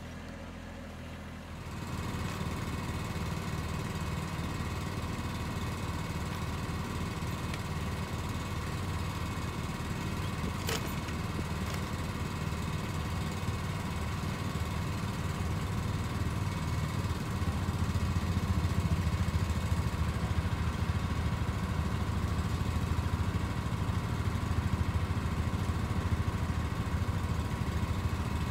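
Kubota B2601 compact tractor's three-cylinder diesel running steadily while it powers a hydraulic timber-trailer crane lifting a log, growing louder about two-thirds of the way through. A single sharp click about a third of the way in.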